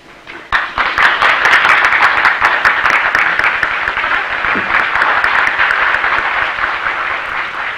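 Audience applauding, starting about half a second in and easing off slightly toward the end.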